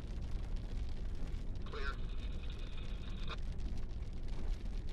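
Road and engine rumble inside a moving truck's cabin. A high, nasal tone sounds for about a second and a half near the middle.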